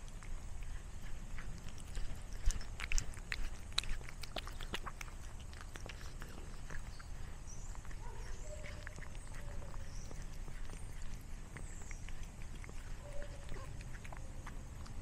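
A cat crunching a dry snack taken from a person's fingers, with a burst of sharp crunches and clicks about two to five seconds in and scattered crunches after. Faint bird chirps come in the second half.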